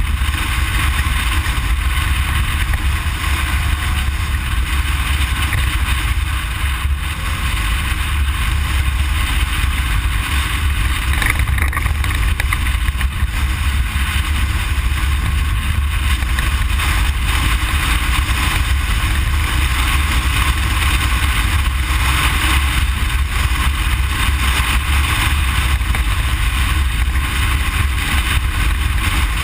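Cabin noise inside a Ford Explorer prerunner driving off-road: a steady, loud rumble of engine and tyres on dirt, heavy in the low end, with a constant rushing noise over it.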